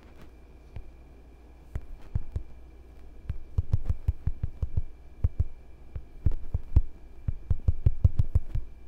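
Fingertips tapping on a smartphone touchscreen while typing a text, a quick irregular run of soft knocks that starts about two seconds in, over a faint steady high hum.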